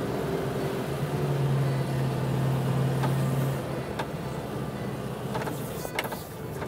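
Air-cooled flat-four engine of a late-bay VW Type 2 van running as the van drives, a steady drone. A little under four seconds in it drops quieter, and a few sharp clicks follow.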